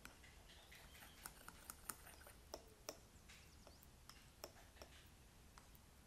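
Metal spoon clinking and scraping against a ceramic mug while stirring cocoa mug-cake batter: soft, irregular light clicks, most of them in the middle of the stir.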